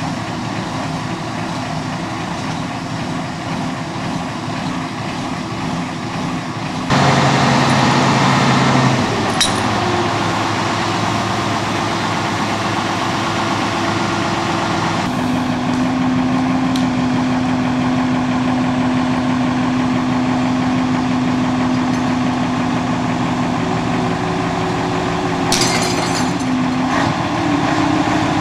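Heavy diesel truck engines running steadily. The engine note suddenly gets louder about seven seconds in and shifts pitch again about fifteen seconds in, with a couple of short clicks.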